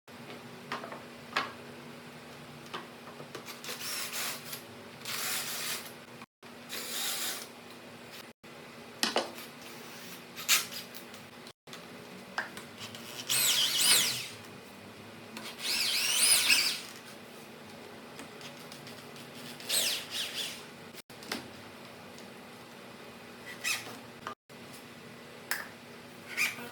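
Woodworking tool noises: short bursts of scraping and rubbing on wood, with sharp knocks and clicks, broken by abrupt cuts. About halfway through come two louder bursts with a wavering squeal.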